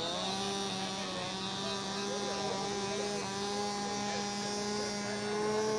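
Tiny two-stroke model glow engines, the eight Cox Tee Dee .010s of a Hughes Hercules model, running together with a steady high-pitched buzz. The pitch climbs at the start, then holds.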